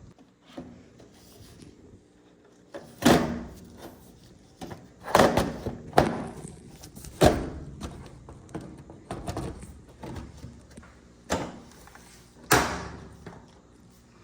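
Sheet-metal panels of a GE dryer cabinet being handled and fitted: about six sharp clunks and knocks at irregular gaps, with lighter taps between.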